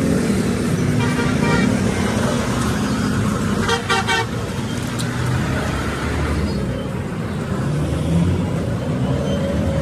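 Truck engine running steadily, with a short horn blast about four seconds in.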